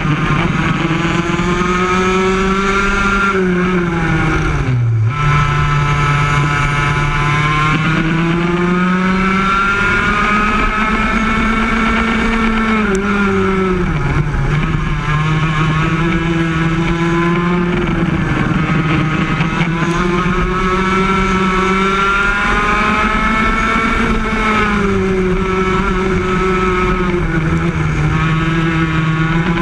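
Yamaha KT100 single-cylinder two-stroke kart engine racing, heard onboard. Its note climbs on the straights and drops back into the corners every few seconds, with one sharp dip and recovery about five seconds in.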